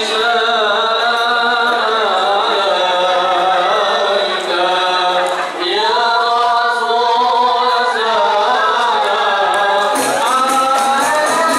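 A man and a young woman sing an unaccompanied, drawn-out chant-like melody into microphones as the opening of a terbang Jawa (srakal) piece. About ten seconds in, the frame drums with their jingles come in.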